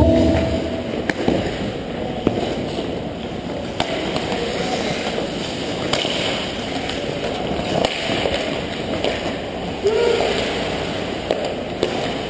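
Ice hockey play close to the net: skates scraping and carving on the ice, with scattered sharp clacks of sticks and puck against the ice and boards, in the echo of an indoor rink.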